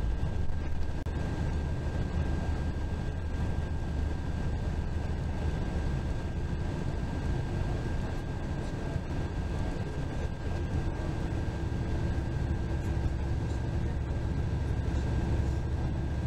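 Bus cabin noise while cruising on the interstate: a steady low rumble of engine and tyres, with a thin steady whine above it.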